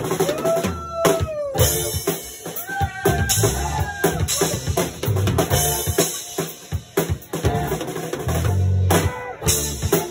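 Live band playing a funk groove: drum kit with kick, snare and rimshots over an electric bass line, with some sliding notes from an instrument above.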